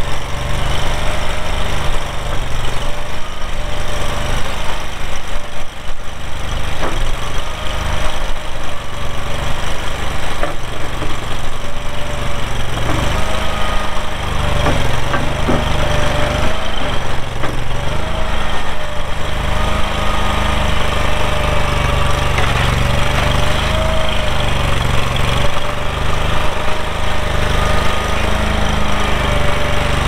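Kohler gas engine of a Toro TX427 stand-on mini skid steer running steadily at the operator's platform, its pitch wavering slightly now and then as the machine is worked.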